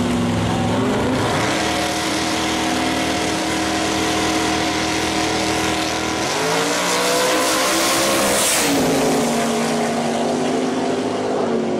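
Two drag cars' engines, including a pro street Chevy Bel Air's, held at steady revs on the starting line, then launching at full throttle about six seconds in; the pitch climbs, then drops to a lower steady tone after about nine seconds.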